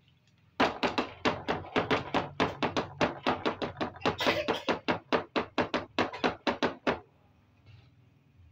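Hard plastic toy clicking and tapping as it is handled, in a fast, fairly even run of about five to six sharp clicks a second that stops suddenly near the end.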